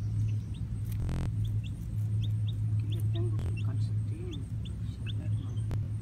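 A lone baby chick peeping: short high peeps, about two to three a second, over a steady low hum.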